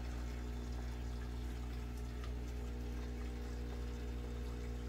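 Aquarium equipment running: a steady low electric hum with water bubbling from an air stone.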